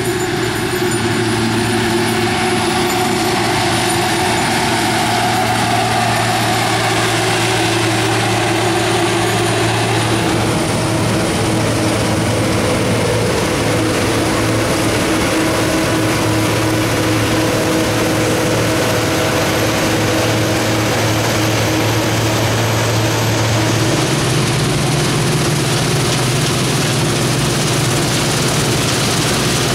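Diesel engine of heavy harvest machinery running steadily under load, with a broad mechanical whir over it. The sound changes character about a third of the way in, and the engine note steps up in pitch a little past the three-quarter mark.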